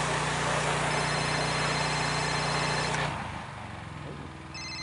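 Briggs & Stratton gas pressure washer running at full speed with its high-pressure spray hissing; about three seconds in the trigger is released, the spray stops and the Quiet Sense automatic throttle drops the engine to a lower, quieter speed. A phone ringtone sounds over it, once while spraying and again near the end.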